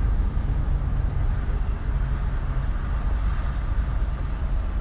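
Steady low vehicle rumble with a faint hiss above it, with no separate knocks or swells.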